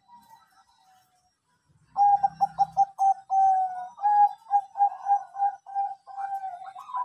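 Zebra dove (perkutut) of the Thai-bred Bangkok strain cooing: faint at first, then about two seconds in a loud run of quick short notes, one long drawn coo, and a string of shorter coos.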